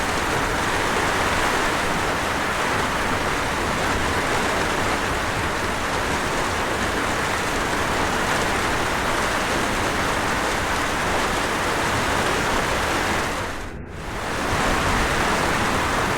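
Waterfall and rain: a steady, even rush of falling water. About fourteen seconds in it dips briefly and then comes back at the same level.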